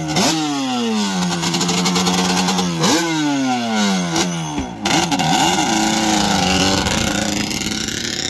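Small motorcycle engine revved hard twice, the pitch sinking slowly back over two seconds or so each time. It then gives a few quick throttle blips and settles into a steady run.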